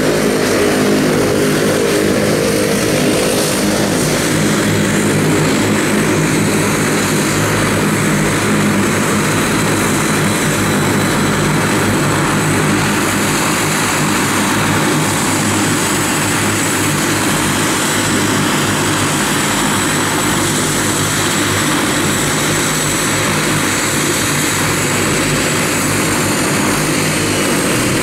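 Turboprop aircraft engines running steadily: a deep propeller drone with a thin high turbine whine over it.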